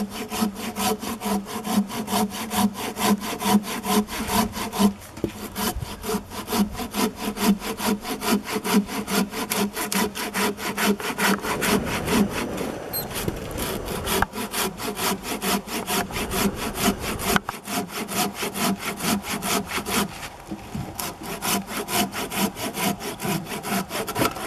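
Silky Sugoi 360 curved pruning saw cutting through a 7 to 8 inch wooden log by hand, its coarse teeth rasping through the wood in rapid, even back-and-forth strokes, about four a second. The saw cuts on the pull stroke.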